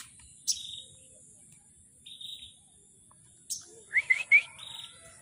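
Small caged songbird calling: short buzzy notes and sharp high chips scattered through, then three quick rising chirps about four seconds in, over a faint steady high hiss.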